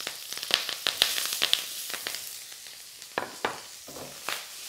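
Spring onion and peppers sizzling in hot oil in a wok over high heat, with sharp crackles and pops through the first two seconds. A few strokes of the wok utensil stirring the vegetables come a little after three seconds in.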